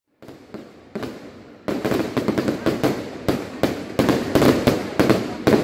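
Fireworks display: a dense run of bangs and crackles, several a second, growing louder about a second and a half in and again near four seconds.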